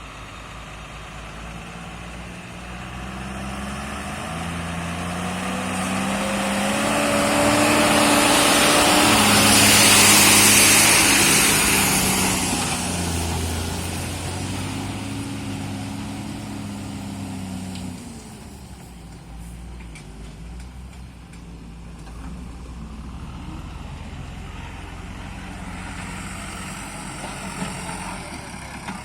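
Heavy diesel engine working: it rises in pitch and loudness to a peak about ten seconds in, then falls back and runs on more steadily. A few light knocks come near the end.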